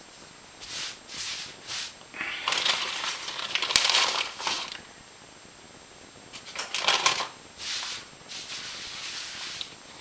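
A hand rubbing rice flour into a cotton cloth: rough swishes of palm and fabric scrubbing, in several bouts, the longest a couple of seconds in. The cloth is being dusted as a liner for a bread-proofing bowl.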